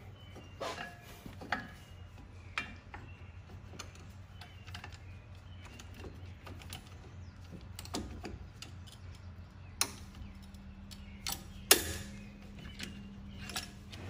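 Metal clicks and clinks of a caliper spreader tool and brake pads being worked out of a Brembo six-piston brake caliper after its pistons have been pressed back, with two sharper knocks near the end. A low steady hum lies underneath.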